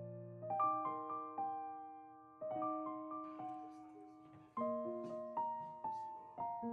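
Background piano music: soft chords and single notes struck every second or so, each note fading away before the next.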